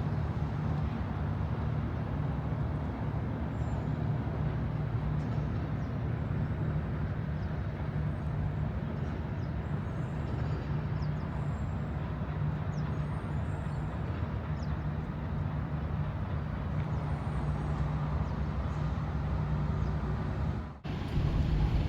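Steady low engine drone with a constant hum, with a brief break near the end after which it comes back slightly louder.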